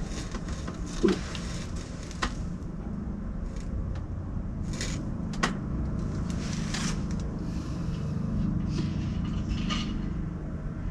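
Steady low background hum with scattered light clicks and a few short rustles, typical of hands handling and tearing jerky treats.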